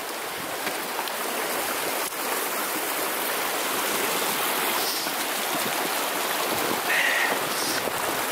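Shallow mountain brook running over rocks: a steady, even rush of water.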